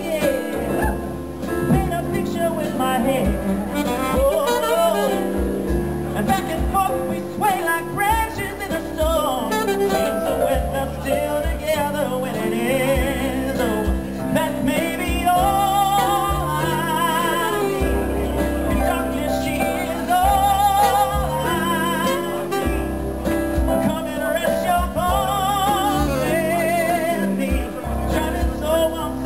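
Live piano-bar song: a man singing into a microphone, accompanied by piano and saxophone, with long held notes sung or played with vibrato.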